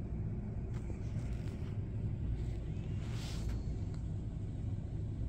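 Cat gnawing on a stick: a few faint crunches and a short scratchy burst about three seconds in, over a steady low rumble.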